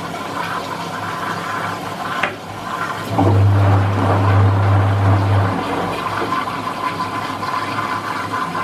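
Washing machine filling with water: a steady rush of water pouring into the drum. A click about two seconds in, then a low hum from about three seconds to five and a half.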